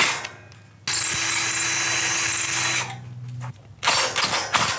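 Cordless driver driving a blue-headed masonry screw through an aluminum door frame into concrete block: a steady run of about two seconds, then a quieter, lower-pitched spell, and a few short bursts near the end.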